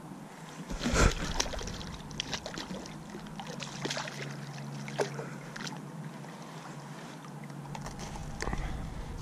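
Hooked walleye splashing and thrashing at the surface of the river as it is reeled in to the bank, a run of short irregular splashes. The loudest sound is a heavy thump about a second in.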